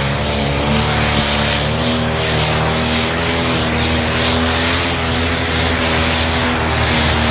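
Modified John Deere pulling tractor of about 2300 hp, its diesel engine held flat out under full load as it drags the weight sled. It makes a loud, steady drone whose pitch wavers only slightly.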